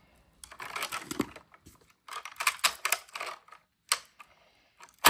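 Plastic toy vehicles and figures being handled and knocked together, a rapid clatter of small clicks and rattles in two bursts, about a second in and again from two to three and a half seconds in, then a lone click.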